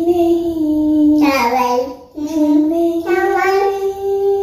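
A child singing without accompaniment: held notes that step up and down in pitch, in two phrases with a short break about two seconds in.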